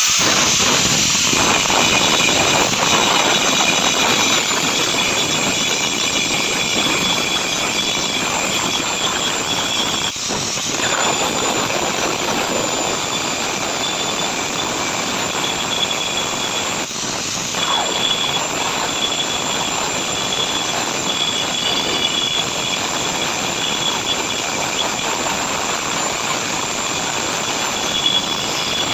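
Gas brazing torch hissing steadily while copper compressor pipework is brazed, with faint high squealing tones in the hiss and brief dips in level about ten and seventeen seconds in.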